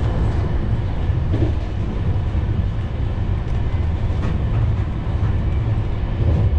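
Tejas Rajdhani passenger coach running along the track: a steady low rumble of wheels and running gear, with a few faint ticks.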